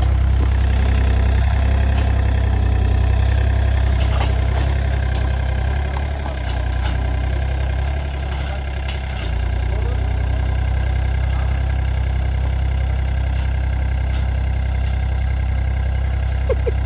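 An engine running steadily with a deep, low hum that dips briefly about six and eight seconds in, with scattered clicks and knocks.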